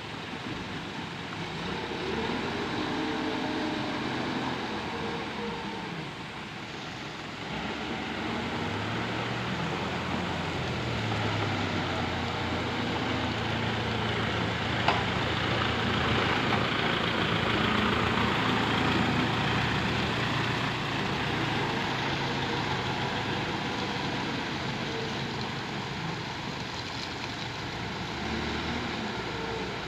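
Backhoe loader's diesel engine running, its pitch rising and falling as it works. One sharp click about halfway through.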